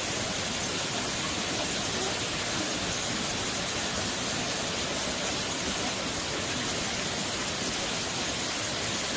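Steady rush of water from an artificial waterfall spilling over rockwork into a pool: an even hiss with no breaks.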